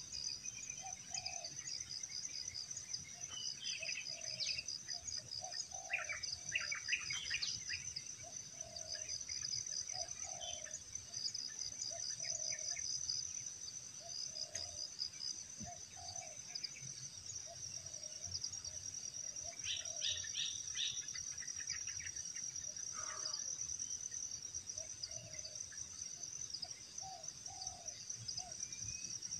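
Forest ambience: a steady, high pulsing insect trill, with a low call repeating about once a second and bursts of bird chirps now and then.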